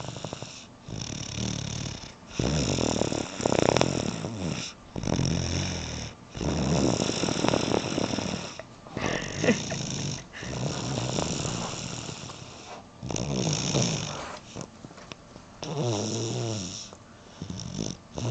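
A young boy snoring loudly in his sleep, with a snore on each breath repeating every couple of seconds.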